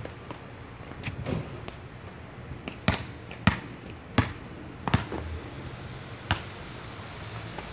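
Basketball bouncing on asphalt as it is dribbled: a handful of sharp bounces, the strongest four coming about two-thirds of a second apart in the middle.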